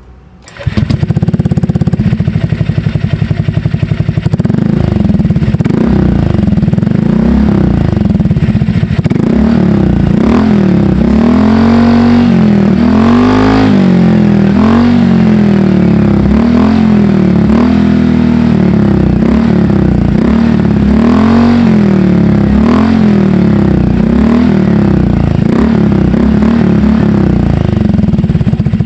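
Honda Click scooter's single-cylinder four-stroke engine running through an SC Project exhaust fitted with a custom-made silencer, its inner silencer removed. It comes in suddenly just under a second in and runs steadily, then from about nine seconds in it is revved in repeated blips, the pitch rising and falling every second or two.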